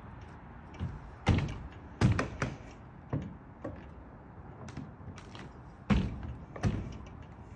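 Petzl Sumtec ice tools and the climber's feet knocking against a wooden climbing wall while dry-tooling: about ten irregular knocks, the loudest a pair about a second and a half in and another pair near the end.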